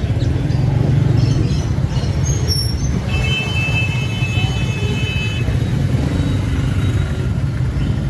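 Busy street traffic: motorcycle and car engines running with a steady low rumble, and a vehicle horn held as one flat high note for about two seconds a few seconds in.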